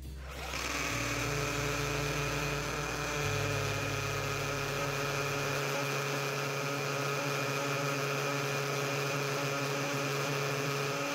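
Bosch PSB 1800 LI-2 18 V cordless hammer drill boring into a stone slab: a steady motor and gearbox whine with several fixed pitches, running without a break at constant speed.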